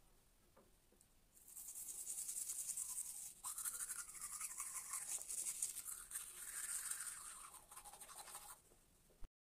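Manual toothbrush scrubbing teeth with teeth-brightening powder: fast back-and-forth bristle scrubbing that starts about a second and a half in, breaks off briefly, and stops near the end.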